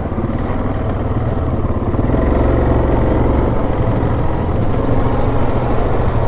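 Yamaha Grizzly 700 ATV's single-cylinder engine running steadily while riding along a trail, with a low rumble that swells a little partway through.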